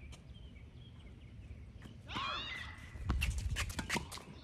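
Sounds of play on an outdoor hard tennis court: a short, high, wavering call about two seconds in, then from about three seconds in a quick run of sharp taps and knocks from footsteps and ball and racket strikes.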